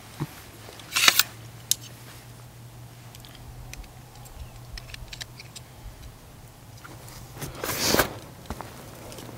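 Scattered small clicks and two brief rustles, about a second in and again near the end, over a steady low hum: handling noise of gear and clothing close to the microphone.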